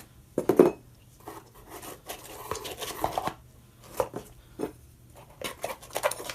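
Handling noises of a cardboard parts box and its packing: scattered light knocks, scrapes and rustles as the part and its foam pad are packed back into the box, the loudest knock about half a second in.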